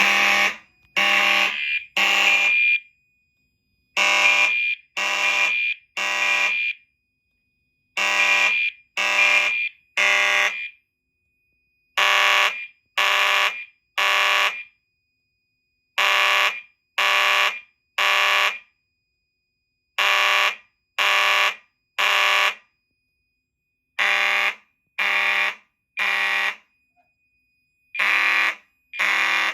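Fire alarm horn strobes sounding the temporal code-3 evacuation pattern: three buzzy blasts of about a second each, then a pause, repeating about every four seconds. The mechanical horn runs on full-wave rectified panel power instead of DC battery power, which the owner expects to make it sound a little scratchy.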